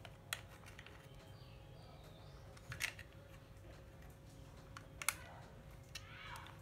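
Faint handling of an old plastic-bodied Ryobi 12V cordless drill as a test lead is clipped to the battery terminals in its handle: three light, sharp clicks a couple of seconds apart, with quiet fiddling between.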